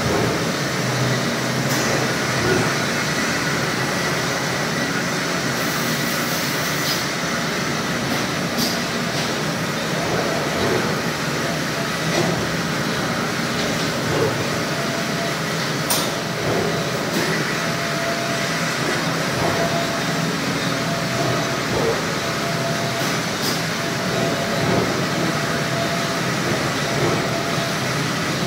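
Horizontal metal-cutting band saw running, its blade sawing through a clamped metal bar: a steady mechanical drone of motor, wheels and blade. A faint steady whine joins about ten seconds in.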